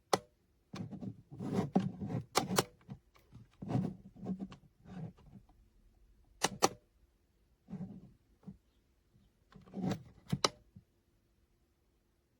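Irregular handling noise of a small plastic digital alarm clock: duller knocks and bumps between sharp clicks, several of them in quick pairs.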